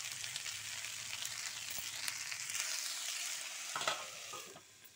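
Diced potatoes and peas sizzling in hot oil in a kadhai. Near the end a stainless steel plate is set on the pan as a lid with a metallic clank, and the sizzle becomes quieter under it.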